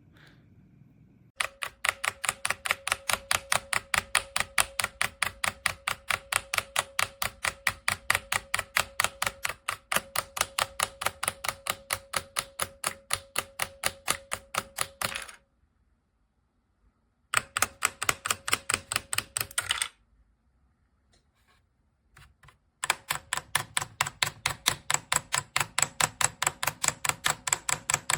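Keychron C2 mechanical keyboard with tactile Keychron Brown switches being typed on rapidly. The keystrokes come in quick, evenly spaced clacks in three runs, with short pauses after about fifteen seconds and again after about twenty.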